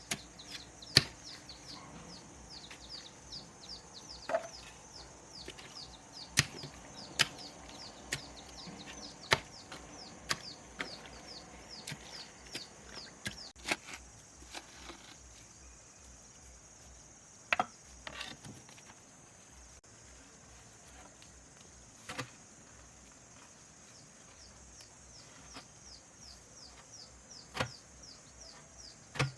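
Sharp chopping strikes on wood, irregular, about one a second at first and then only now and then. Behind them, a rapid high chirping runs on, fading out midway and returning near the end.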